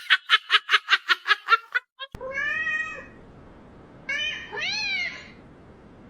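A cat meowing three times: one long meow, then two shorter ones, each rising and falling in pitch. It is preceded by a fast run of short sounds, about six a second.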